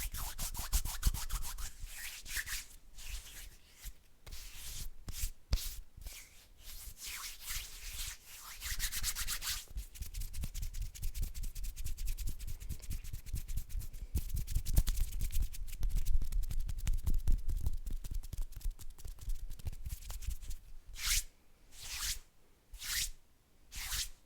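Bare hands rubbing and brushing together close to the microphone: long runs of rapid back-and-forth strokes, then about four separate, slower swishes near the end.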